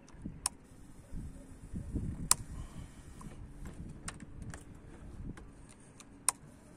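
A few sharp clicks from a hand working the ignition key of a Suzuki Bandit 1250, the loudest about two seconds in and near the end, over a low irregular rumble.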